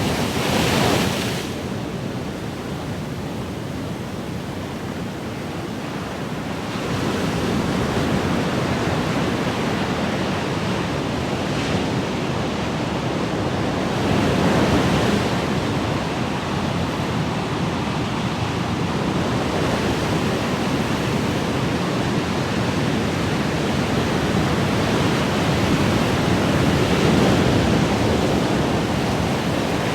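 Ocean waves washing and breaking in a continuous rush, swelling louder every several seconds as waves come in.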